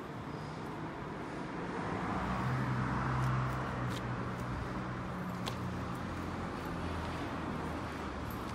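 Honda F510 5-horsepower tiller engine running steadily with a low hum. It swells slightly about two to three seconds in, then settles.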